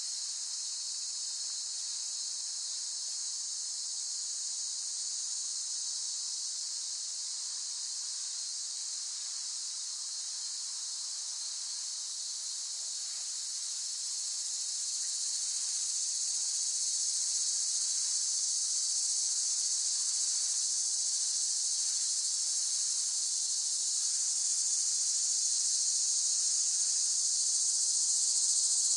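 Cicadas singing: a steady, dense, high-pitched buzzing drone that swells a little louder about halfway through.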